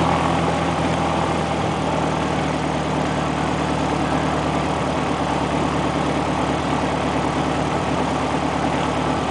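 Four-cylinder Lycoming piston engine of an Embraer Corisco (a Piper Arrow built under licence) turning the propeller, heard inside the cockpit during the pre-takeoff engine check. It gives a steady drone whose pitch shifts slightly about two seconds in.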